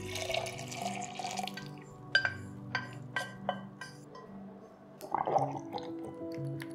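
Dark vinegar-soy reduction poured from a pan into a glass measuring jug of ketchup and pickled ginger, a hissing pour for about a second and a half, then several sharp clicks as the last drops fall. About five seconds in, a short clatter as a metal immersion blender shaft goes into the jug. Background music plays throughout.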